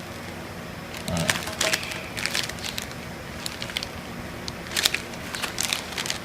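Small plastic toy figures and their packaging being handled: scattered light clicks and crinkling rustles, in a cluster about a second in and again in the second half.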